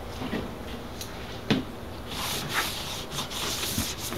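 Gloved hand rubbing tire paste around the bead of a knobby motorcycle tire on a spoked rim: scuffing and wiping, louder and more continuous from about two seconds in. There are a few light knocks as the tire and wheel are handled; the sharpest comes about one and a half seconds in.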